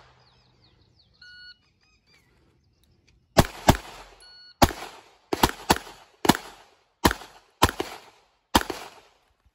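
A short electronic beep about a second in, then a semi-automatic pistol firing about ten shots in quick pairs and singles over some five seconds.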